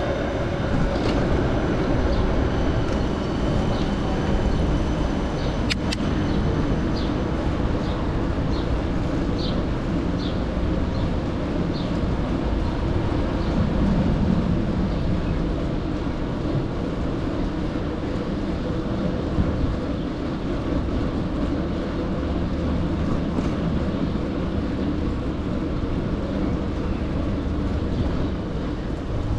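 Steady low rumble of city traffic and rolling noise during a bike ride, with a row of short high chirps in the first dozen seconds and a single sharp click about six seconds in.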